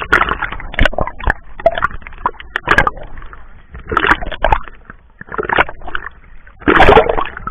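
Seawater sloshing and splashing in irregular bursts, with the loudest splash about seven seconds in.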